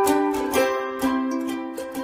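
Intro music: a plucked-string melody over an even strummed beat, about four strokes a second, fading toward the end.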